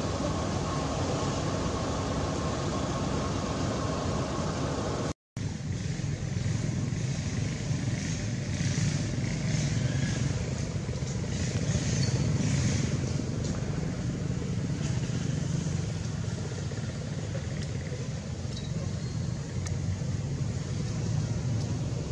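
Steady low rumble of outdoor background noise, broken by a sudden brief dropout about five seconds in.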